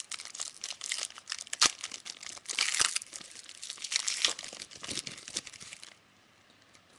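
A trading card pack wrapper being torn open and crinkled by hand, a dense crackling with a few sharper snaps, stopping about six seconds in.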